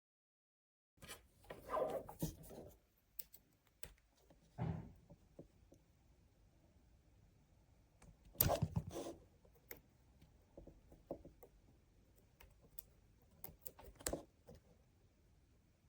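Scattered handling noises: light knocks, taps and rubbing. The louder knocks come about two seconds in, around the middle and near the end.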